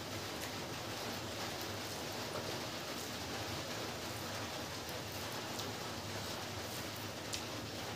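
Steady rain falling, an even hiss throughout, with a few faint ticks on top.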